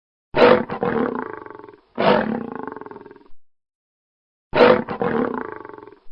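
Lion roar sound effect: three separate roars, each starting loud and fading away over about a second and a half, with dead silence between them.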